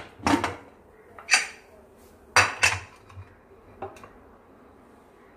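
Aluminium pressure cooker being opened by hand after cooking: its lid is worked free and lifted off, with about six sharp metal clanks and knocks over the first four seconds.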